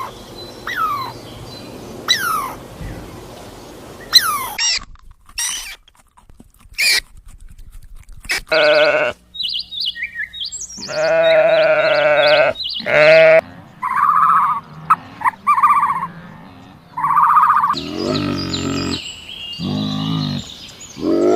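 Sheep or goats bleating in a string of separate short cries with a quavering pitch, some long and low, some short and high. A few short falling calls come first.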